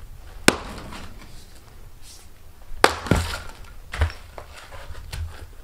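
Axe splitting a birch round on a chopping block: a sharp crack about half a second in and another near the middle, followed by a few lighter knocks.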